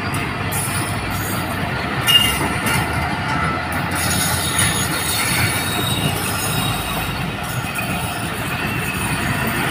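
Passenger coaches of the Business Express rolling past close by as the train gathers speed: a steady rumble and clatter of wheels on the rails, with a brief high wheel squeal about two seconds in.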